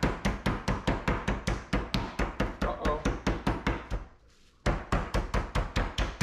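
Meat tenderizer mallet pounding pieces of alligator meat on a wooden cutting board: rapid, even thuds, about four or five a second, with a short break about four seconds in.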